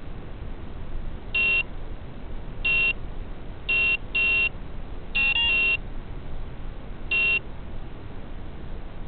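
Short electronic beeps, about seven of them at uneven intervals, some in quick pairs, one pair stepping in pitch, over a steady hiss.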